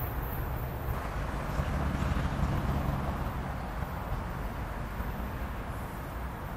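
A distant diesel locomotive's engine running steadily as the train approaches from far off, heard faintly under steady outdoor background noise.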